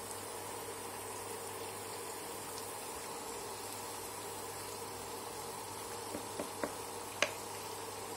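Spring rolls deep-frying in hot oil: a steady sizzle and bubbling, with a few light clicks near the end.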